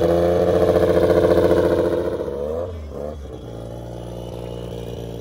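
Drag snowmobile engines idling, loud and slightly uneven at first, then dropping to a quieter, steadier idle about three seconds in.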